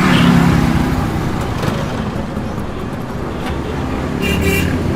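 Road traffic passing close by: car and motorbike engines running, loudest just after the start as a vehicle goes past, with a short high-pitched tone about four seconds in.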